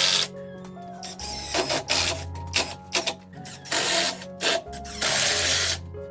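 Background music with several bursts of workshop tool noise over it, each lasting about half a second to a second, with sharp knocks in between.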